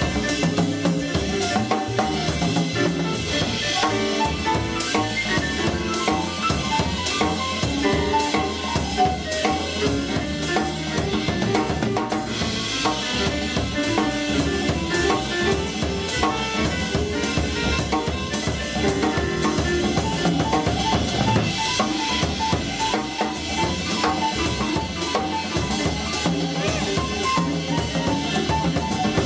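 Live jazz combo playing: a busy drum kit with cymbals, snare and rimshots under bass and quick runs of pitched notes that fit an acoustic piano solo; the horns are not playing.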